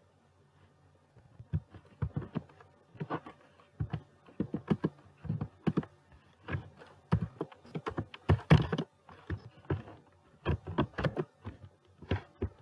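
Typing on a computer keyboard: irregular runs of keystrokes that begin about a second and a half in, with a louder flurry near the middle.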